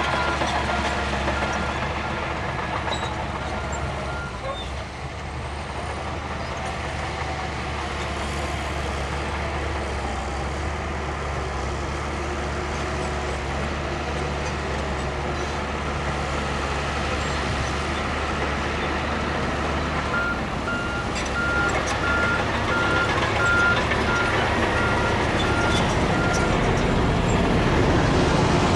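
Heavy earthmoving machinery running steadily with a deep diesel rumble, while a reversing alarm beeps for the first few seconds and again from about two-thirds of the way through.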